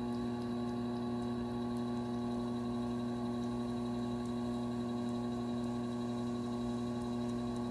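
Electric potter's wheel motor running at a steady speed: a constant hum of several fixed tones.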